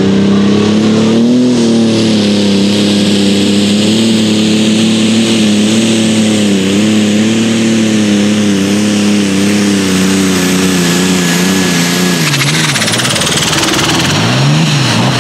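Turbocharged diesel engine of a super stock pulling tractor held at full throttle under load while it pulls the sled, with a steady engine note and a high turbo whine above it. Near the end the engine note drops and swings up and down as the pull comes to its end.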